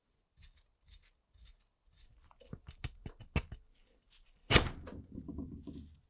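Rusted Zippo lighter worked by hand: light scratching, then a few sharp metal clicks, then a loud snap about four and a half seconds in as the seized insert breaks free, followed by a gritty scrape of rusty metal sliding out of the case.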